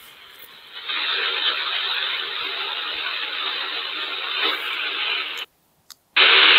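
Static hiss from a CB radio's speaker on an empty channel. It swells about a second in and runs steady, cuts out completely for about half a second near the end, then comes back louder.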